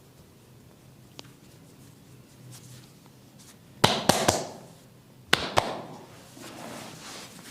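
Hair cracking: sharp snapping cracks as locks of hair are twisted and yanked during a barber's head massage, three in quick succession about four seconds in and two more about a second and a half later, each followed by a brief rustle of hair.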